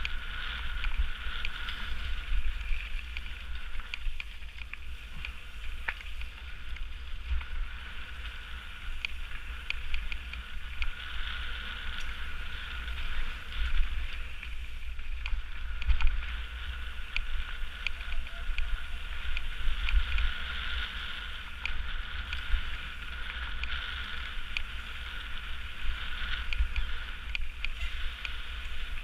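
Mountain bike riding fast down a gravel forest trail: tyres rolling over loose gravel with scattered clicks and rattles from the bike, under a steady low rumble of wind on the microphone.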